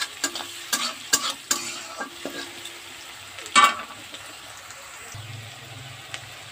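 Chopped onions frying in oil in an aluminium kadai, stirred with a metal spatula. A run of scraping, tapping strokes lasts about two and a half seconds, followed by one loud clank of the spatula on the pan a little past the middle. After that comes a steady, quiet sizzle.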